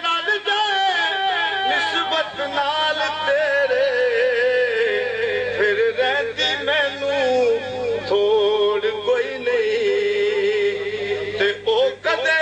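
A man singing a long, ornamented vocal phrase through a microphone and loudspeaker. His voice wavers up and down, then holds one long note for several seconds before breaking off near the end. A faint steady hum runs underneath.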